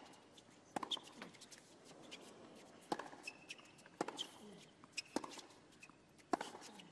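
Tennis rally on a hard court: sharp pops of racquets striking the ball and the ball bouncing, about one a second, with short squeaks of court shoes between the shots.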